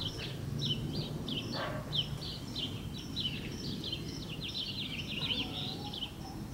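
Small birds chirping in a rapid series of short, high calls over a low, steady background rumble.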